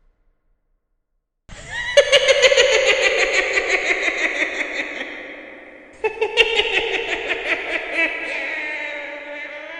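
Witch's cackle sound effect: a high-pitched, rapid cackling laugh that starts after a moment of silence. It fades, and a second cackling run begins a bit over halfway through.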